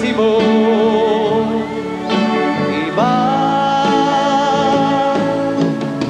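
Band playing an instrumental passage of a romantic ballad between sung lines: a lead melody with vibrato wavers over a steady accompaniment, then holds one long note from about halfway.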